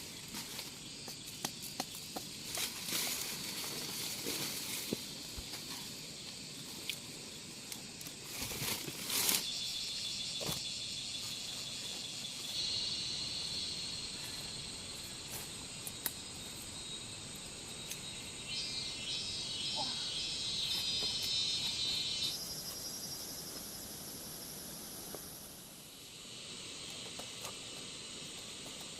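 Steady high-pitched insect chorus, changing abruptly a few times, with scattered clicks and rustling.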